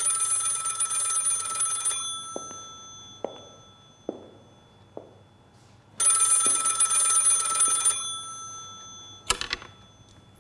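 Bell of an old rotary-dial desk telephone ringing twice, each ring about two seconds long with a pause of about four seconds between them. A few light knocks fall in the pause, and near the end the handset is lifted with a brief clatter.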